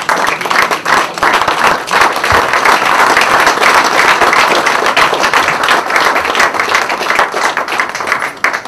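Audience applauding: many hands clapping loudly and densely, dying away near the end.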